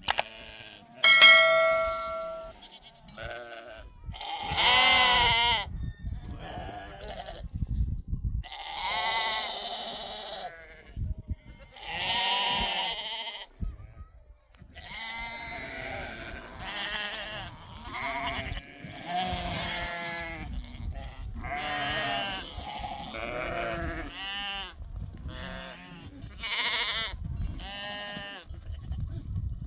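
A flock of sheep bleating over and over, the wavering calls overlapping one another. A sheep bell rings once about a second in.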